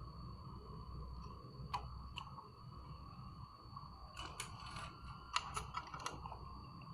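Scattered light clicks and taps of small parts being handled while wiring an amplifier board, with a quick run of them about four to six seconds in, over a low steady hum.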